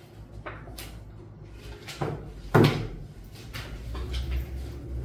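A few short knocks and clunks, like a door or cupboard being handled, the loudest about two and a half seconds in, over a low hum.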